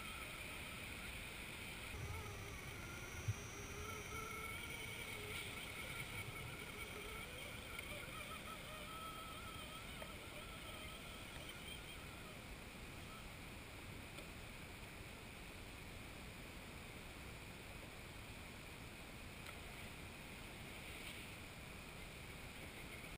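Faint whine of an Axial Honcho scale RC truck's electric motor and drivetrain, wavering in pitch with the throttle as it crawls uphill, then fading out about halfway through. A single sharp click comes about three seconds in, over a steady faint hiss.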